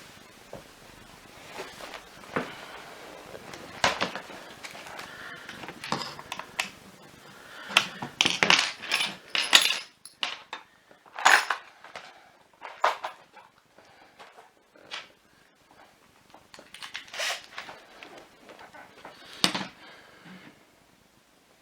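Irregular clicks, knocks and short clattering rattles of small plastic and metal parts being handled while a vacuum power nozzle is taken apart, busiest in the middle, with single knocks later on.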